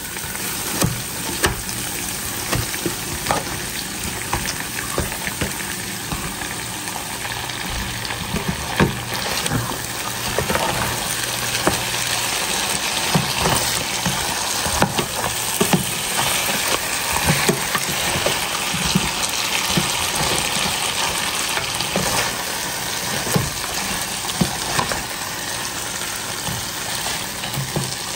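Hassar (armoured catfish) sizzling as it fries in hot curry masala in a pot, with frequent sharp clinks and scrapes of a spoon stirring against the pot.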